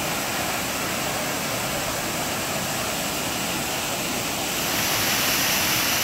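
Shaki waterfall's water falling onto rocks: a steady rushing noise that grows louder and more hissing about four and a half seconds in.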